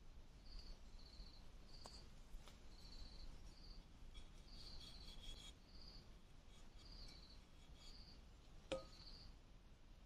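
Faint insect chirping: short trilled chirps repeated roughly once a second, with a few soft clicks and one sharper click near the end.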